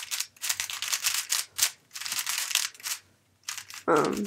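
Moyu Aolong V1 3x3 speedcube being turned quickly by hand: rapid plastic clacking and scraping of the turning layers, in quick runs with a short pause about three seconds in. The cube is new and feels somewhat dry, as if it has little or no lube.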